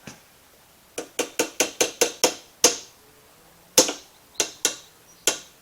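Hammer striking metal: a quick run of about eight sharp taps, a short pause, then four more spaced blows.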